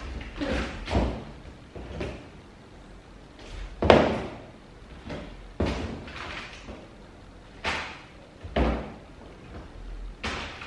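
Goods being rummaged and knocked against the inside of a 55-gallon plastic barrel: a series of about seven knocks and thuds with softer rustling between them, the loudest about four seconds in.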